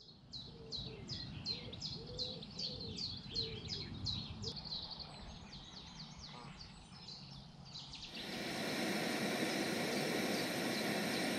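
A songbird singing a fast run of short, high, falling notes, about four a second, with softer lower calls beneath. About eight seconds in, a steady outdoor hiss takes over, with faint bird chirps in it.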